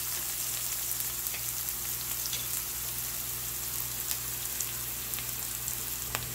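Chopped ginger, garlic and shallots sautéing in hot olive oil in a wok: a steady sizzle with scattered small crackles.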